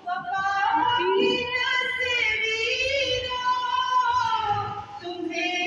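A woman singing solo into a microphone, holding long notes that slide up and down in pitch.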